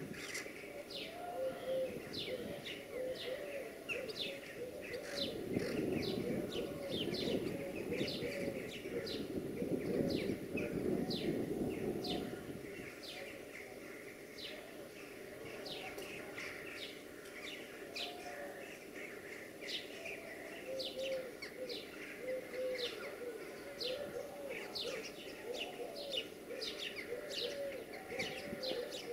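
Many small birds chirping in quick, short notes, with a pigeon-family bird cooing in repeated phrases. A low, distant rumble swells and fades between about five and twelve seconds in.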